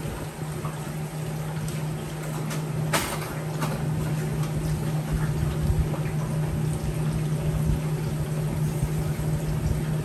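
Steady machine hum over an even rushing noise, with a sharp click about three seconds in and a few faint ticks.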